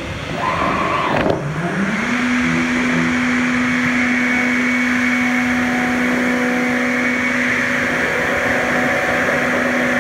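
CNC router: an axis drive whines up and down in pitch as the head moves. About a second and a half in, the spindle spins up over half a second to a steady whine, with a steady hiss, and runs on at speed.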